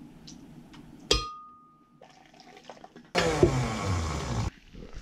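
A scoop clinks against a glass blender jar about a second in, leaving a short clear ring. Liquid is then poured into the jar for about a second and a half, starting and stopping abruptly.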